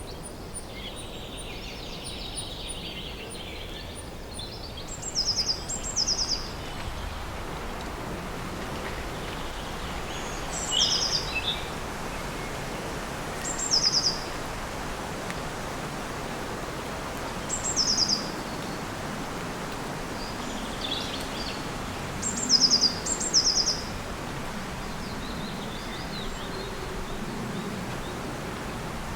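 A bird calling over a steady outdoor background hiss. Each call is a short, quick run of high notes that step downward, repeated every few seconds and sometimes given twice in a row.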